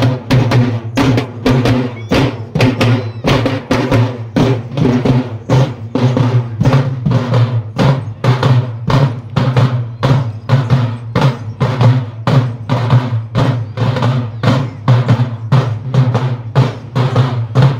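Loud, fast folk drumming for a deity dance: steady sharp drum strokes, about three a second, over a low steady tone.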